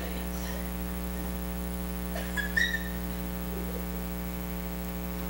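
Steady electrical mains hum from the sound system, with one brief high-pitched sound about two and a half seconds in.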